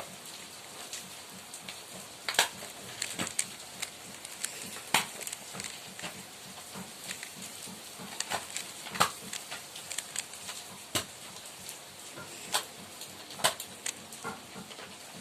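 A 3x3 Rubik's cube being turned by hand, its plastic layers clicking irregularly, with a few sharper clacks, while the first-layer cross is being built.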